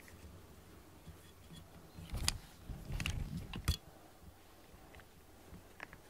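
A cat rubbing and bumping against the camera right at the microphone, making a cluster of knocks and rustling about two seconds in that lasts over a second, with a few faint ticks afterwards.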